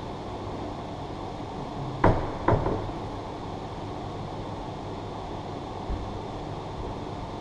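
Two sharp knocks about half a second apart, about two seconds in, from hand work on the underside of a car's gearbox, over a steady workshop hum.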